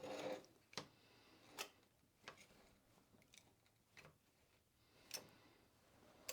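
Faint, irregular clicks and light taps of the NP203 transfer case shifter's small metal parts being handled, about eight in a few seconds.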